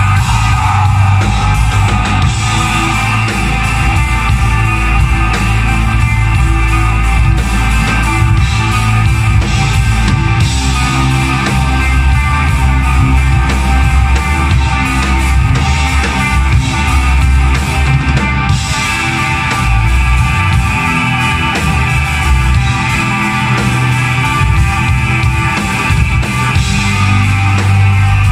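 Live black metal band playing: electric guitar, bass guitar and drum kit together at a steady loud level.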